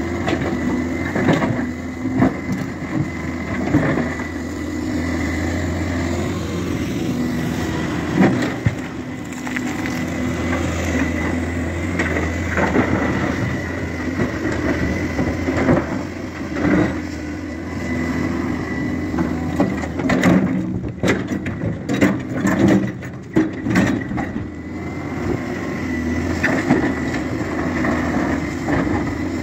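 Hyundai wheeled excavator working in rock: its diesel engine runs steadily while the bucket scrapes and breaks stone, with irregular knocks and clatters of rock. A dense run of sharp knocks comes about two-thirds of the way through.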